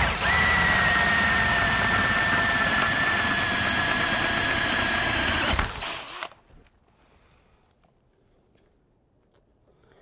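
DeWalt cordless drill running steadily under load as it bores through a metal roll-cage tube, with a high whine that sinks slightly in pitch. It stops suddenly about five and a half seconds in.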